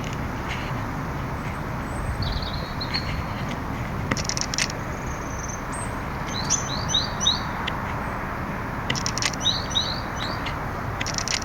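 Small birds chirping in short runs of quick, high notes, three or four in a row, a few times, over a steady background rush, with a few sharp clicks.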